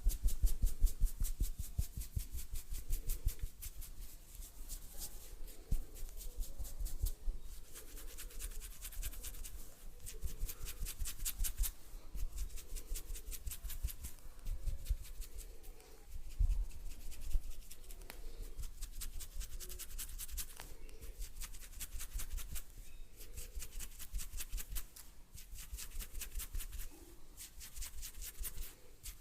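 Close-miked rapid scratching and rubbing strokes, a dense run of quick ticks that is loudest in the first couple of seconds and then goes on more softly.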